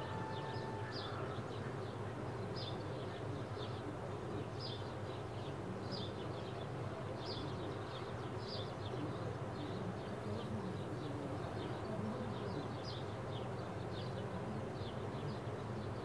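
Faint, short high-pitched chirps repeating irregularly, about one or two a second, over a steady low hum.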